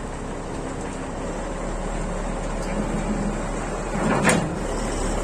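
Semi-truck tractor's diesel engine running steadily as it reverses under a trailer to couple. A short, loud burst of noise stands out about four seconds in.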